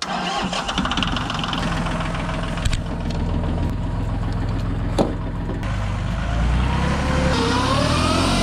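John Deere loader tractor engine running at idle, with a sharp click about five seconds in. Near the end it revs higher as the tractor pulls away.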